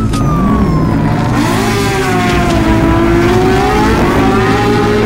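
Cartoon motorcycle engine sound effect, a whine that falls in pitch and then rises again as the bike speeds along.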